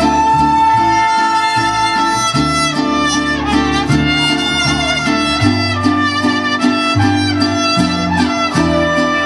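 Mariachi band playing an instrumental break in a ranchera song, with violins leading the melody over a rhythmic bass line.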